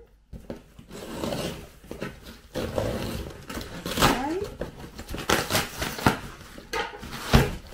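Cardboard shipping box being cut and torn open: irregular rasping rips and scrapes of cardboard and packing tape, with a woman laughing in between and a knock against the box near the end.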